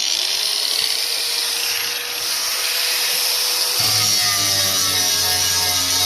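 Ryobi 1500W 180mm angle grinder with a grinding wheel fitted, revved up from low speed: its whine rises, then holds steady at full speed. About two-thirds through the sound changes, a deeper hum joining the whine.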